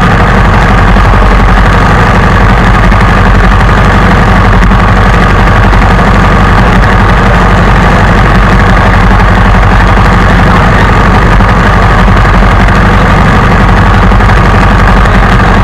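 Loud, steady engine drone, idling evenly with no change in speed.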